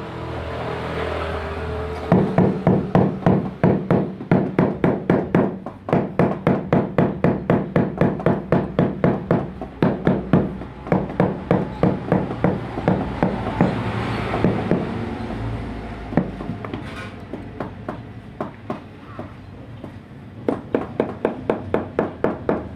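Rubber mallet tapping a large porcelain floor tile, bedding it down into the mortar. The knocks come quickly and evenly at about four a second, pause for a few seconds with only a few single knocks, then start again near the end.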